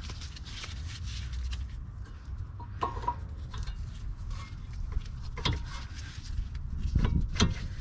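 Front brake caliper piston being pressed back into its bore with a piston compressor tool: a few short creaks and clicks over a low steady rumble.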